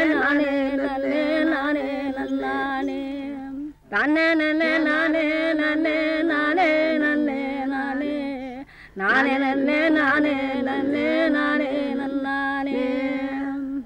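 A woman singing a Tamil folk song about the neem tree, in three long ornamented phrases of about four seconds each, each held on a steady note.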